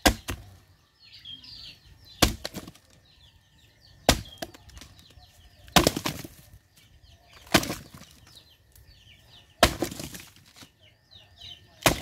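A nipa palm fruit head is beaten against a wooden log, giving seven heavy thuds about two seconds apart as the fruits are knocked loose from the cluster. Faint bird chirps can be heard between the strikes.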